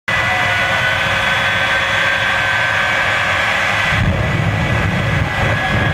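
Jet truck's jet engine running with a steady high whine. About four seconds in, as the afterburner lights, the whine fades and a deeper low rumble takes over.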